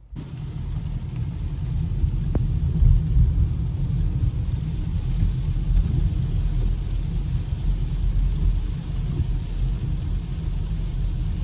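Steady low road rumble inside a car's cabin as it drives along a wet paved road in the rain, with an even hiss of rain and tyre spray over it.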